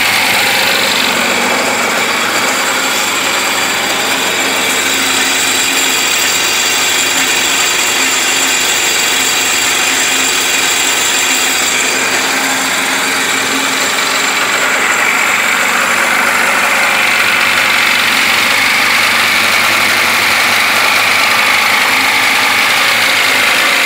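Sea-Doo 3D personal watercraft engine running steadily at a constant speed, heard close to the open engine bay.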